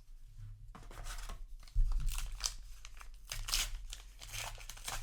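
Paper booster-pack wrapper being torn open and crinkled, in a run of rustling tears starting under a second in, with a low bump just under two seconds in.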